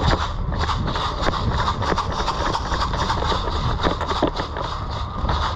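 A run of irregular sharp clicks and knocks, several a second, over a steady low rumble.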